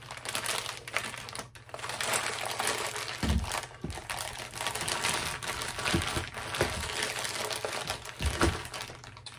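A Hefty zip-top plastic bag crinkling and rustling as it is handled, with a few soft low bumps from about three seconds in.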